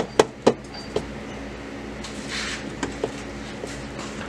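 Audi D4 driveshaft being rocked by hand at its center support bearing carrier, giving a few light knocks, most of them in the first second, over a steady background hum.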